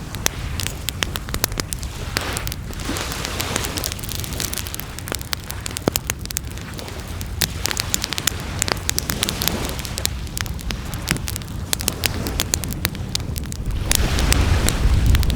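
Bonfire crackling, with many sharp pops and snaps, over a steady low rumble that swells near the end.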